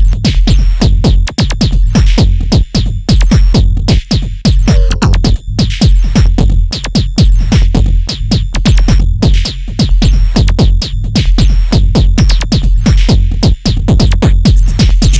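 Electronic techno track with dense, fast percussive clicks and hits over a heavy, steady deep bass.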